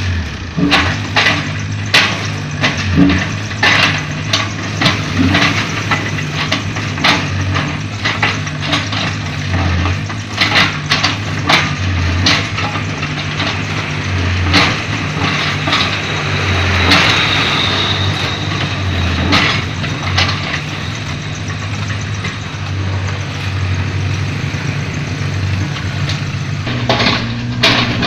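Hitachi excavator's diesel engine running steadily while the steel bucket digs into a broken road, with frequent sharp clanks and knocks of the bucket on rock and pavement and a longer scrape about halfway through.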